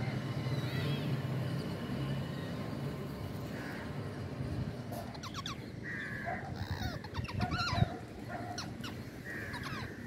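Harsh bird calls from a feeding flock: a few faint calls early on, then from about halfway through a run of short, sharp calls and rapid call series in quick succession, over a low steady background rumble.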